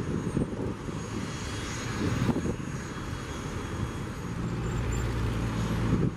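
Airliner jet engines running at an airport, a steady low rumble that grows louder in the second half, with a low hum joining about four seconds in.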